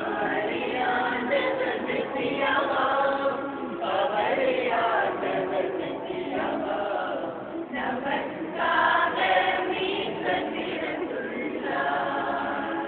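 A small group of men and women singing a Tamil Christmas song together in phrases, with short breaks between the lines.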